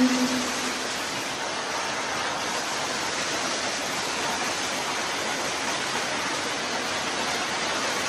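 A steady, even rain-like hiss, with the tail of a held sung note fading out in the first moment.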